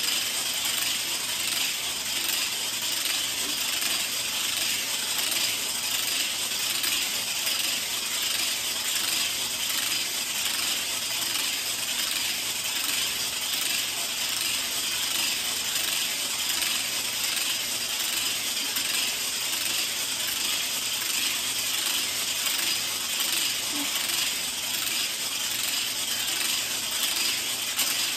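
Segmented exercise hula hoop spinning around the waist, its plastic links and tethered weight ball clicking and rattling steadily without a break.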